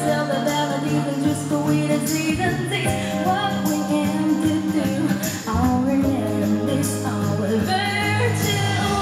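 Live pop performance: a female singer singing over band accompaniment with a sustained bass line.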